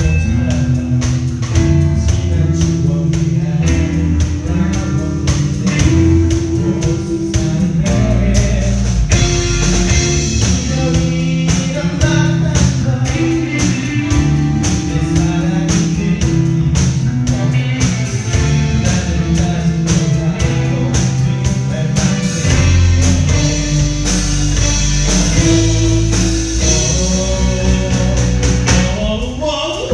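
Rock band of drums, bass, electric guitar and keyboard playing a song, with a singer's voice over a steady drum beat.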